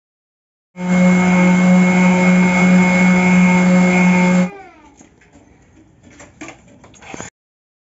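Electric orbital sheet sander running steadily on plywood with a loud buzzing hum. It starts suddenly just under a second in. About four and a half seconds in it is switched off and winds down with a falling whine, followed by a few faint knocks.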